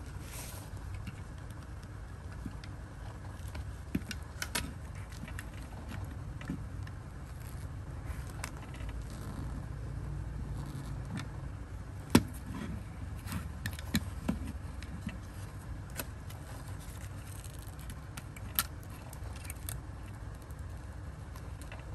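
Scattered light clicks and metallic clinks of small parts of a die-cast model car being handled, with one sharper click about twelve seconds in, over a low steady rumble.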